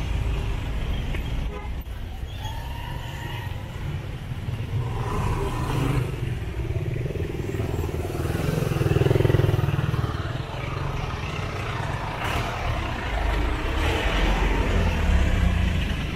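Slow, congested street traffic close by: motorcycle and car engines idling and creeping past. One engine swells louder as it passes near, about halfway through.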